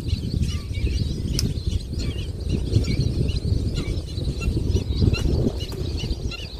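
Wind rumbling on the microphone, with small birds chirping again and again throughout.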